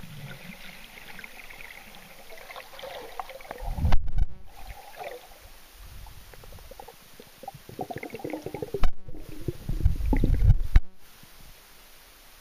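Muffled lake water sloshing and gurgling, picked up through a waterproof camera held underwater. Low thumps come about 4 seconds in and again in a cluster from about 8 to 11 seconds.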